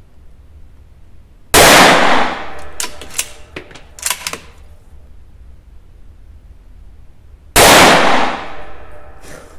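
Two loud rifle shots from a Savage B17 bolt-action rimfire in .17 HMR, about six seconds apart, each with a short echoing tail. Sharp metallic clicks of the bolt being worked follow the first shot.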